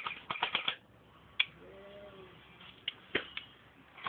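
Airsoft guns firing: a quick burst of rapid snapping shots in the first second, then single shots scattered through the rest. A faint short call is heard about halfway.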